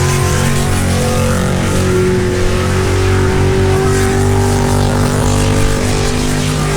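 Car V8 engine running at steady high revs, its pitch held with only slight rises and dips, over a continuous noisy hiss.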